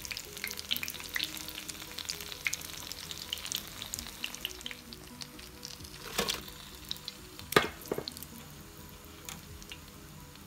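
Cheese samosas deep-frying in medium-hot oil, a steady dense sizzle and crackle that thins out over the last few seconds. Two louder knocks come about six and seven and a half seconds in.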